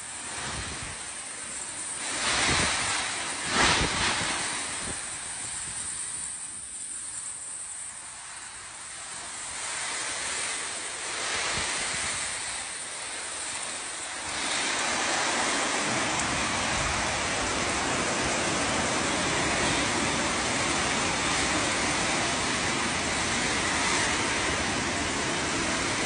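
Storm wind and rain: a rushing noise that swells in gusts a few seconds in, then grows louder about halfway through and stays steady.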